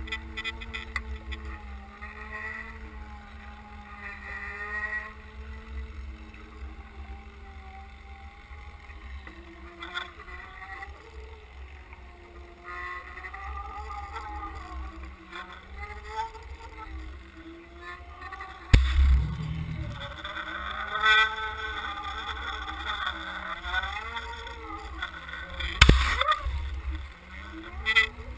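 A boat's motor heard underwater while towing the camera: a droning whine that slowly rises and falls in pitch over a low rush of water against the housing. Two heavy knocks stand out, about two-thirds of the way through and again near the end.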